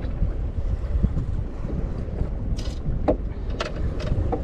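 Wind buffeting the microphone over the steady wash of the sea around a small drifting boat, with a few short sharp clicks in the second half.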